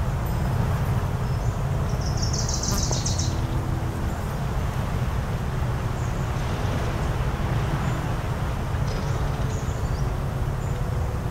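Steady low rumble of waves and wind on the shore, with a bird giving one brief, rapid, high rattling trill about two seconds in.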